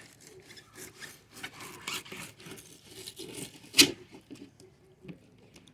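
Fillet knife sliding between the skin and flesh of a red drum fillet, with the scales left on the skin, making irregular scraping strokes. A sharp knock just before four seconds in is the loudest sound.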